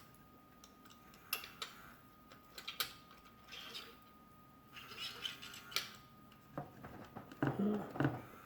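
Clicks and short scrapes of the Raggedy Ann & Andy talking bank's mechanism being handled and pushed, over a faint steady tone. Near the end comes a brief bit of faint talking from the bank's voice record as the needle is pushed down onto it: the needle does not press down on its own, so the voice barely plays.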